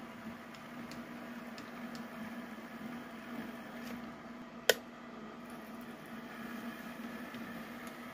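HO scale model locomotive's motor and gears humming steadily as it moves a boxcar along the track. One sharp click about halfway through as the boxcar's couplers meet the waiting car.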